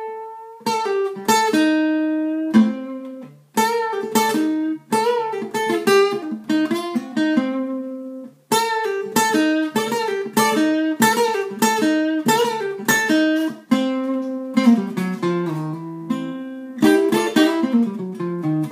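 Acoustic guitar playing bluesy single-note licks from the C minor pentatonic with an added note, plucked notes in quick phrases separated by brief pauses, with a run stepping downward near the end.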